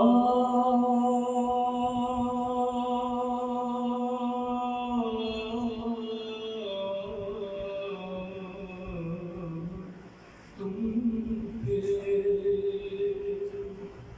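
A man reciting a Shia devotional salam in an unaccompanied, melodic chant: one long held note for about five seconds, then the melody steps down in stages, a short break, and another held phrase.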